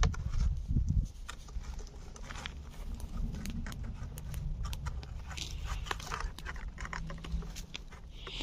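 A cat chewing food, a run of small irregular clicks. There is a low rumble in the first second.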